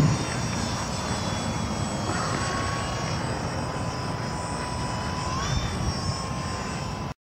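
Electric motor and propeller of a small foam RC airplane in flight, a thin steady whine that rises in pitch about five and a half seconds in as the plane climbs. The sound cuts off abruptly near the end.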